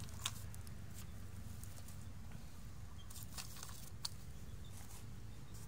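Small plastic toy animals being handled and set down on an artificial-grass mat: faint, scattered light clicks and ticks, one slightly louder about a quarter second in, over a low steady background rumble.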